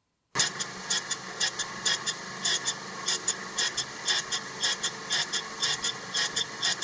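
Surface grinder wheel grinding a high-speed steel blank: a steady machine hum starts abruptly, with bursts of grinding hiss about two to three times a second as the wheel bites the steel.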